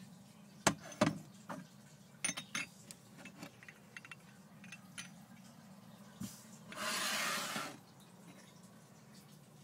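Handling noise: a handful of light clicks and knocks in the first few seconds, then a short rustling hiss lasting about a second near the two-thirds mark, over a faint low hum.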